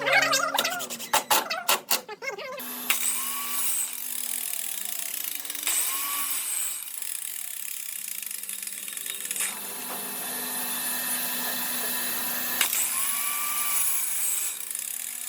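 A handheld power tool running steadily on wood, a hissing, grinding sound that starts about three seconds in and is cut by a few brief breaks.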